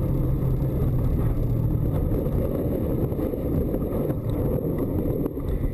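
Car engine and dense tyre rumble heard from inside the cabin as the car slides on a snow-covered road. The engine's steady note fades about two seconds in, leaving the low rumble with a few faint knocks.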